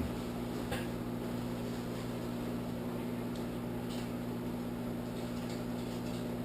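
Microwave oven running with a steady low hum while it cooks bacon, with a few faint clicks along the way.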